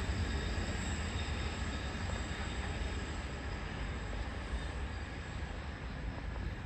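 Distant diesel trains running steadily, mostly a low rumble with a faint, steady high-pitched tone above it.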